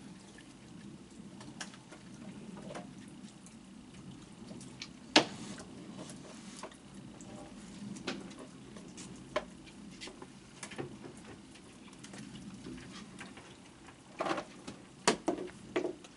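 Young raccoons feeding on cookies on a wet wooden deck: scattered small taps and clicks from their feeding and moving about, with one sharp click about five seconds in and a quick cluster of clicks near the end, over a steady low background.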